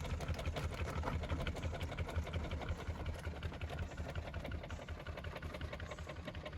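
1987 Ford Bronco II's 2.9-litre V6 engine idling, a low even pulsing that gets a little quieter toward the end.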